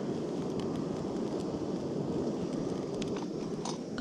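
Primus canister gas backpacking stove burning with a steady roar, with a few faint clicks near the end.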